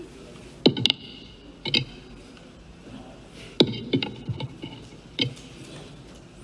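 Handling noise at a podium microphone: a handful of scattered knocks and clicks, the loudest about a second in and again a little past halfway.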